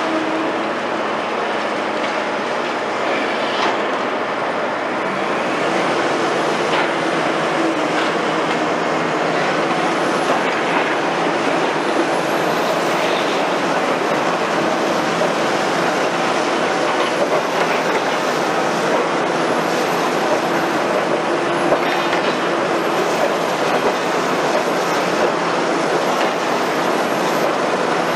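Liebherr R960 demolition excavator running steadily under hydraulic load, its engine and hydraulics making a continuous hum as its demolition attachment works concrete rubble. A few sharp knocks cut through the noise.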